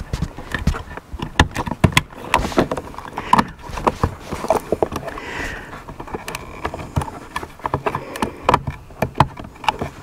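Plastic clicks, taps and knocks, many and irregular, as wiring connectors are worked into the back of a car door trim panel's switch unit and the panel is handled.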